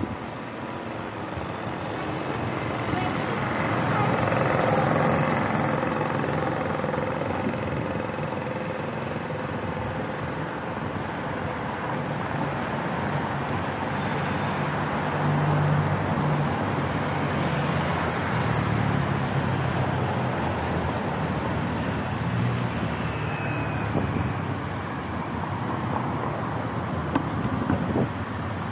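Road traffic heard from a bicycle: motor vehicles running and passing, with a steady low engine hum and a swell in loudness about four to five seconds in.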